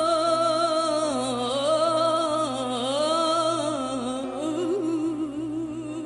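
A young woman singing solo into a microphone: long held notes with vibrato and ornamented runs, the melody sliding down and back up twice.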